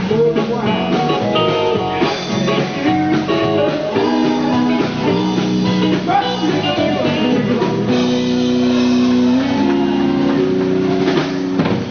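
Electric guitar playing a slow melody of long held notes, with one note sliding upward about six seconds in.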